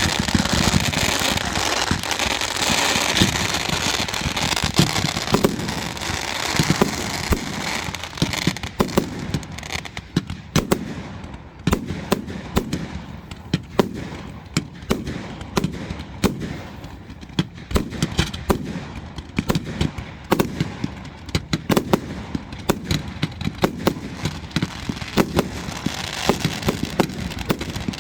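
Firework display: a dense crackling hiss for the first several seconds, then a rapid run of sharp cracks and bangs, with crackling building again near the end.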